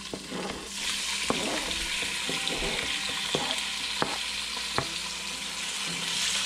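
Cubed spruce grouse breast sizzling as it drops into hot oil in a pot, the sizzle swelling about a second in and holding steady. A few sharp knocks of a wooden spoon against the cutting board and pot come through it.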